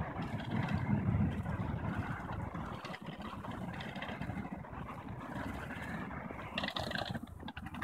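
Motorized pole-mounted olive harvester running, its head shaking and rattling through the olive branches, with a heavy low rumble in the first couple of seconds and fast clattering near the end.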